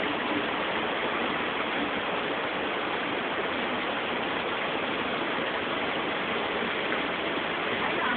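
Misol-Ha waterfall: a steady rush of falling water.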